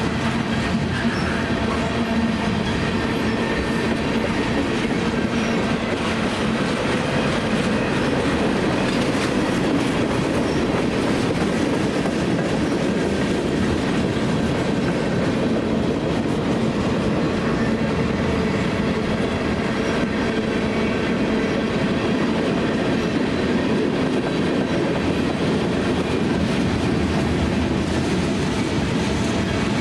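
Freight train of loaded tank cars rolling past close by: a steady, loud noise of steel wheels running on the rails.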